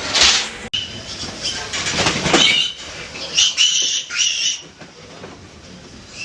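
Piglets squealing in several short, high-pitched bursts, loudest about three and a half to four and a half seconds in, amid scuffling noise.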